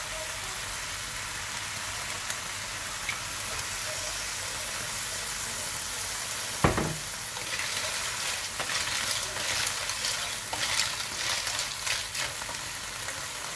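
Clams sizzling in a hot wok after a splash of cooking wine, with one sharp knock about halfway through. After the knock a wooden spatula stirs the clams, and the shells clatter in quick, irregular clicks against each other and the pan.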